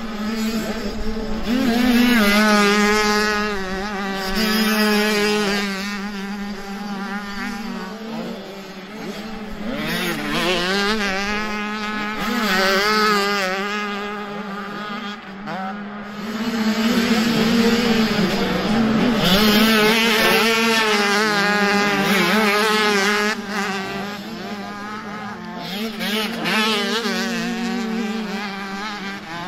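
Several motocross bikes running, their engines revving up and down with the sound swelling and fading several times, over one steady engine note.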